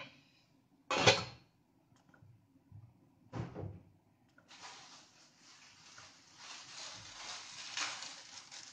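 Cookware knocking twice at the stove, the first knock about a second in and the loudest, then a steady hiss from about halfway through.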